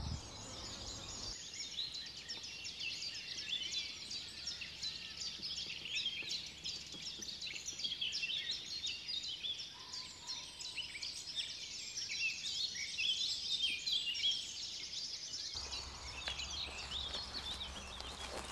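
Several songbirds singing at once: many short, high chirps and trills overlapping without a break.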